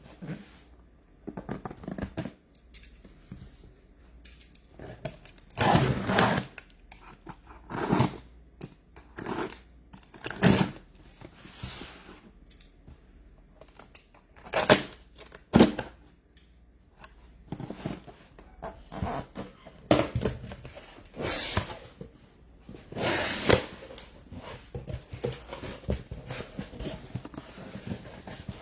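Irregular handling noises: rustling, scraping and dull thumps of things being moved and handled on a tabletop, in bursts of a second or so with short pauses between.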